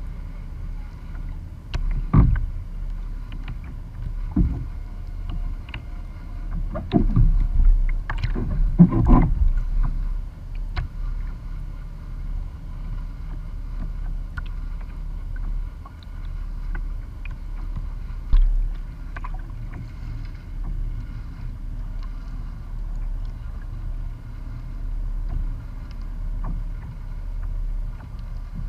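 Small waves lapping and slapping against the hull of a plastic sit-on-top kayak over a steady low rumble. There are several louder slaps in the first ten seconds, then lighter lapping.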